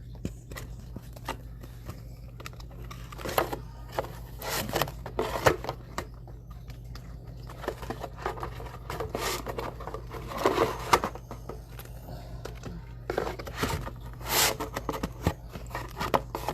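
Trading cards and their plastic sleeves being handled: irregular crinkling, scraping and light taps as cards are shuffled and slid about.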